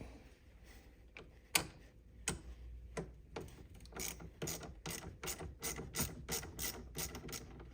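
Socket ratchet wrench clicking as it backs off the 10 mm nut on a car battery's positive terminal. A few scattered clicks come first, then a steady run of about three clicks a second.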